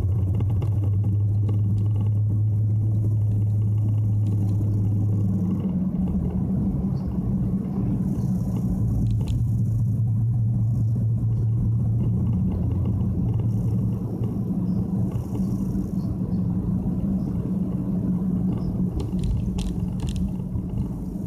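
Nissan Fuga 350GT's 3.5-litre V6 and aftermarket four-tip exhaust heard inside the cabin while driving: a steady low drone whose pitch moves up about six seconds in and shifts again later. A few light clicks near the end.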